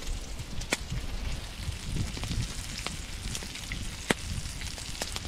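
Walleye fillets sizzling in a frying pan over a campfire, a steady hiss broken now and then by sharp crackles and pops from the burning wood.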